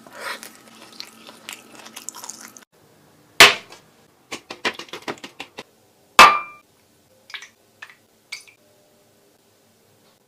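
Kitchen clatter of glass and spoon: two loud sharp knocks, the second with a short ring as a glass bowl is set down on the stone countertop, with quick clicks between them. Then a spoon clinks against the glass bowl three times near the end.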